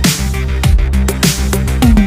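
Electronic background music with a heavy beat: a deep kick drum that drops in pitch about every half second over a sustained bass, with bright hi-hats on top.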